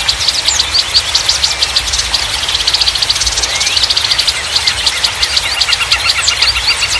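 Small songbirds chirping in fast, repeated trills with a few sweeping whistles, over a constant hiss of running water.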